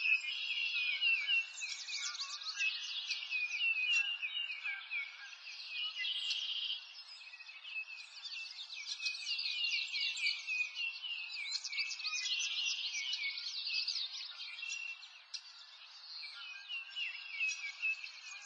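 A dense chorus of small songbirds chirping and twittering, many quick high calls overlapping without a break, over a faint steady hiss.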